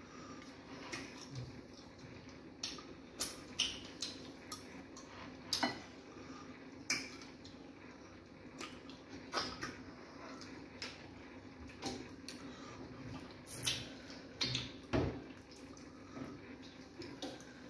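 Eating sounds of fufu and banga soup eaten by hand: irregular wet clicks and smacks of chewing and of fingers working the fufu and dipping into the soup, over a steady low hum.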